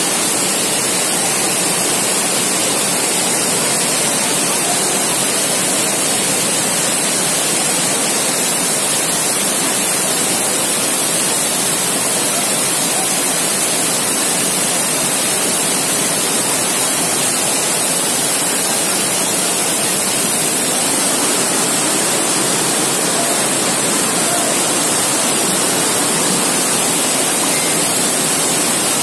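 Floodwater rushing down a street in a heavy downpour: a loud, steady rush of water.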